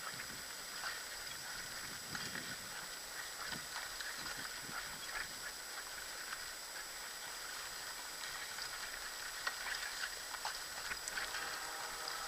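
Four dogs running in harness pulling a kick scooter: their paws padding on the trail and the scooter rolling, with many small scattered ticks and rattles.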